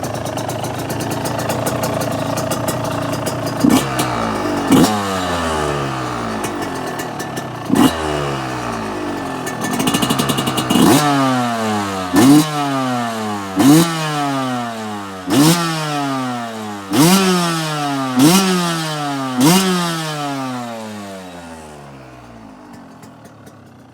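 2022 Yamaha YZ125 single-cylinder two-stroke dirt bike engine, fitted with an FMF Fatty expansion chamber and Shorty silencer. It idles, then is blipped about ten times in quick succession, each rev rising sharply and falling back. It settles much quieter near the end.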